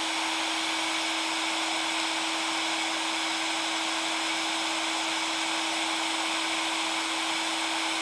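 Resanta FE-2000EKD electric heat gun running steadily in its first, lowest mode at 60 °C: an even rush of air from the nozzle with a steady hum from the fan motor.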